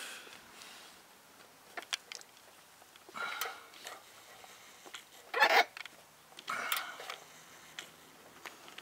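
Socket wrench tightening a new upstream oxygen sensor into the exhaust pipe, the final snugging after hand-tightening: a few sharp clicks about two seconds in, then several short noisy scrapes of metal, the loudest a little past halfway.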